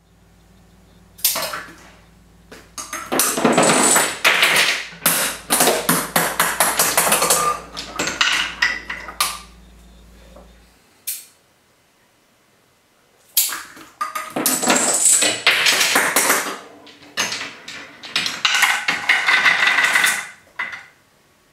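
Parts of a homemade Rube Goldberg machine clattering: a fast run of small hard knocks and clicks, like marbles and dominoes tumbling on wood. It comes in two long bursts, the second starting about halfway through after a brief lull.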